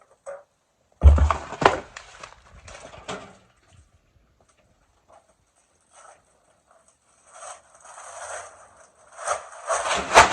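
Objects being handled and set down: a heavy thump about a second in, then clattering knocks, then rustling and scraping that builds near the end.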